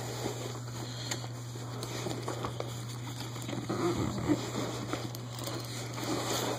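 Light rustling and scattered small clicks and taps over a steady low hum.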